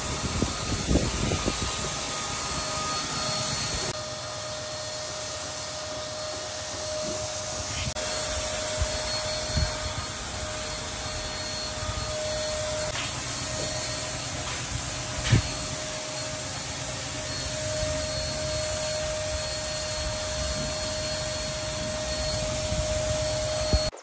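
Electric paint sprayer running continuously, a steady motor whine over the hiss of spraying, with a few short knocks and one sharp knock about midway.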